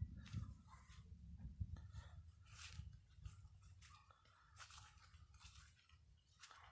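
Near silence: a faint low rumble with a few soft, scattered scratches and crunches.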